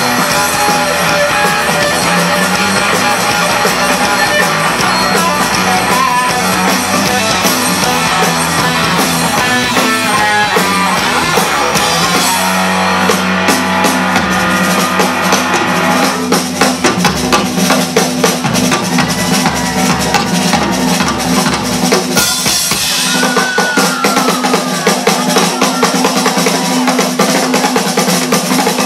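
Live rock band playing a loud instrumental passage on electric guitars, bass guitar and drum kit, the drums hitting hard and fast from about halfway through.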